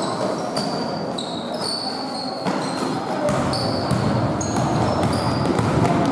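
Basketball game in play: sneakers squeak again and again on the court floor, mixed with the thuds of the ball bouncing.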